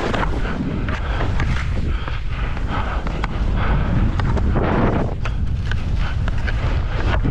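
Wind buffeting the microphone while skiing downhill at speed: a steady low rumble. Over it come swells of hissing as the skis scrape through the snow on each turn.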